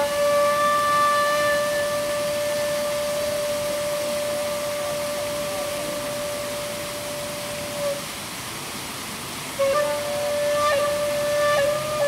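Background music: a wind instrument holds one long steady note for about eight seconds, then falls silent, and a second note comes in about a second and a half later and wavers near the end. Under it is the steady rush of a small stream and waterfall.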